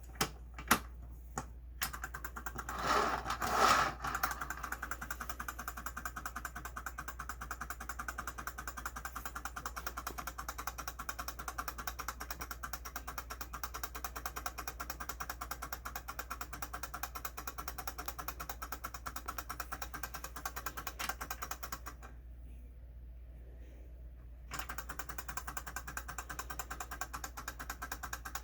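Clockwork mechanism of a Nordic Ware Micro-Go-Round wind-up microwave turntable ticking rapidly and evenly as it turns, after a few clicks and a louder rattling burst near the start. The ticking stops for about two seconds roughly three quarters of the way through, then starts again.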